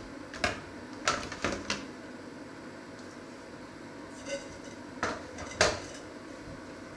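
Kitchenware knocking and clinking on a wooden table as a lid is lifted off a glass dish and set down and a stainless steel bowl is moved. There are four knocks in the first two seconds, a brief ring a little past four seconds in, and two more knocks around five seconds in, the last the loudest.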